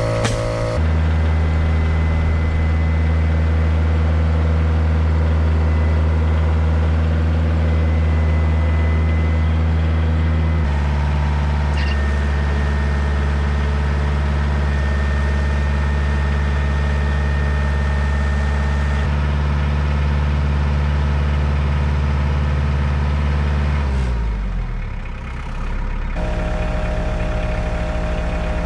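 Compact tractor engine idling steadily, its note shifting a couple of times and dipping briefly near the end.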